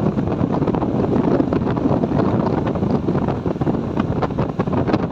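Wind noise on the microphone of a moving motorcycle: a steady rushing with constant rapid crackling gusts, any engine note buried beneath it.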